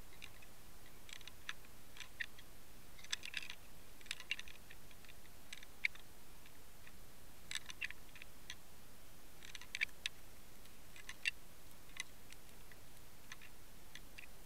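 Scattered sharp clicks and ticks, some single and some in quick clusters, over a steady hiss, picked up underwater by a fishing camera.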